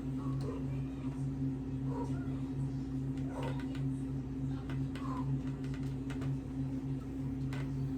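Steady low hum, with a few faint clicks and taps over it.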